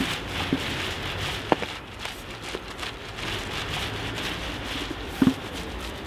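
Paint roller on an extension pole rolling wet white paint over rough concrete: a sticky crackling hiss that swells and fades with the strokes, with a couple of sharp knocks.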